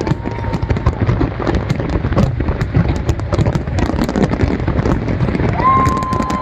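Firecrackers and fireworks going off in a rapid, continuous crackle of pops over a low rumble. Near the end a steady high tone starts.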